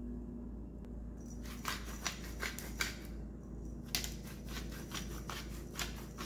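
Twist-style pepper mill grinding peppercorns: quick crunching clicks in two spells with a short pause between.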